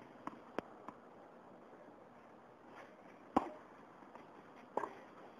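Tennis ball bounced lightly on the court three times, about a third of a second apart, before a serve. About three and a half seconds in comes a loud racket-on-ball strike, and a second strike follows about a second and a half later as the ball is hit back.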